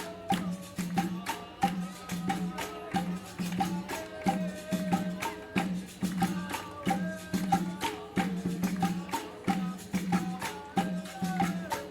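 Live capoeira music: percussion keeps a steady pulsing beat with jingling, rattling clicks, while voices sing a chant over it.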